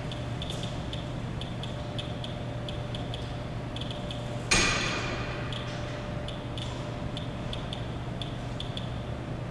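Geiger counter ratemeter clicking irregularly through its speaker as it counts radiation from radioactive display items. About four and a half seconds in, a single sharp knock rings out briefly.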